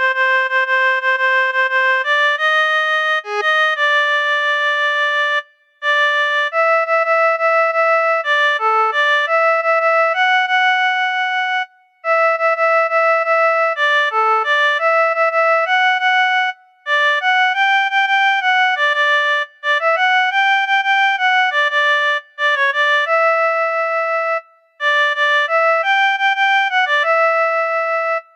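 Software keyboard instrument playing a single-line melody one note at a time, each note held evenly without dying away, with short breaks between phrases.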